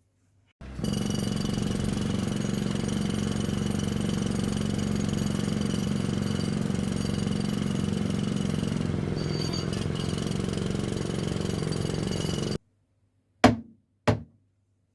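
A steady machine hum with a high whine, starting suddenly just under a second in and cutting off suddenly about twelve seconds later, followed by two short clicks.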